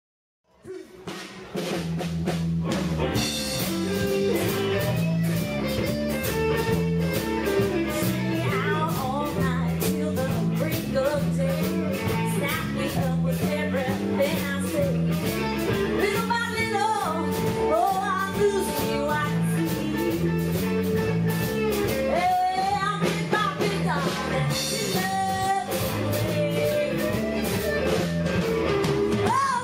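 Live band playing a blues-rock song: electric guitars, bass and drum kit, with a woman singing lead. The music comes in about a second in and then runs at a steady level.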